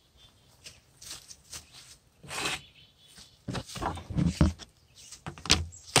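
Irregular short rustles and knocks of handling as a sub roll is picked up and held over the wood fire, several of them over a few seconds.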